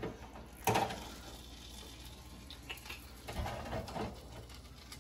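Metal tongs clattering against a deep fryer's wire basket, one sharp clack about a second in and a few softer knocks near the end, over a quiet steady hiss of frying oil.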